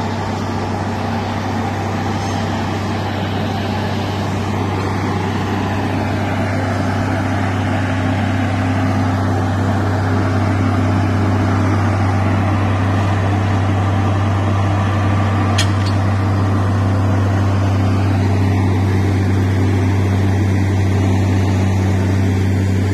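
Heavy machinery engine running steadily: a constant low engine drone with a steady hum over broad background noise, and a brief faint tick about two-thirds of the way through.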